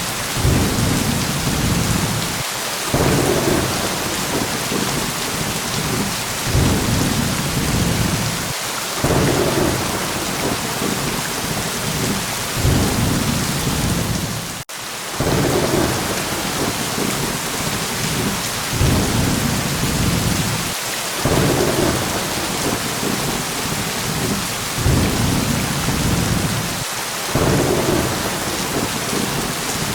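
Steady heavy rain with low thunder rumbling in swells every couple of seconds. The sound drops out for a split second about halfway through.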